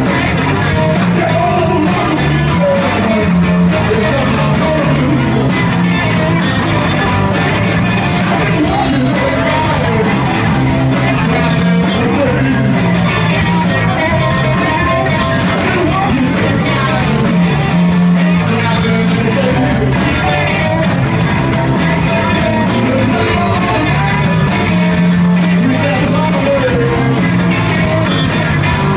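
Live band playing loud amplified music, with electric guitar and a drum kit, steady without a break.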